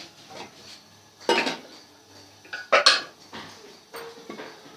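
Metal kitchen utensils clinking and clattering by the griddle: two louder clatters, about a second and a half in and near three seconds in, with a few lighter knocks between.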